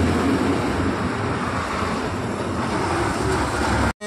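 A private bus's engine running as the bus approaches, mixed with steady road traffic noise. The sound breaks off abruptly just before the end.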